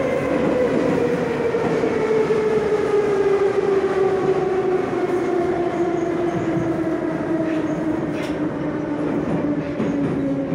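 An 81-717 metro car heard from inside as it runs: the traction-motor whine falls steadily in pitch as the train slows, over the rumble of the wheels on the rails. A couple of sharp clicks come about three-quarters of the way through.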